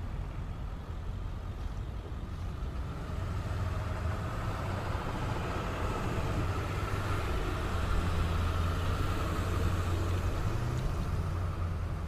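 Ceccato CSA-20 belt-driven rotary screw air compressor running with a steady low hum, which grows louder a few seconds in.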